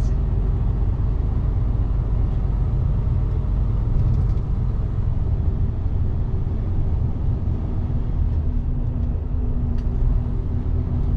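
Steady low rumble of a semi-truck's diesel engine and running gear, heard from inside the cab.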